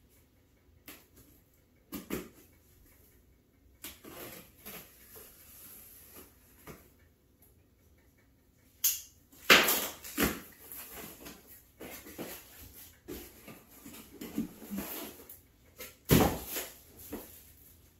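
Irregular handling noises: rustles, knocks and clatter of packaging and objects being moved about on a table, with the loudest knocks a little under ten seconds in and again near the end.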